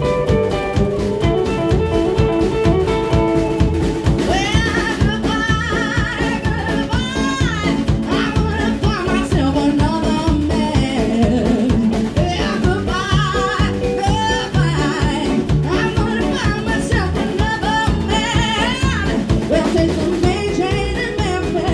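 Live band playing: electric guitar and drum kit keep a steady beat, and a woman's singing voice comes in about four seconds in and carries on over it.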